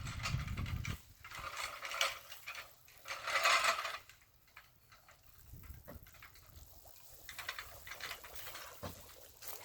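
Sump water splashing and gushing into the dug hole in three short bursts over the first four seconds, then only faint trickling and small knocks.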